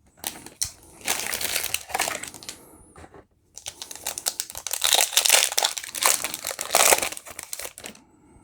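Crinkling of the wrapper of a Panini Select soccer card pack as it is torn open and handled. The crackle comes in two stretches, with a short pause about three seconds in.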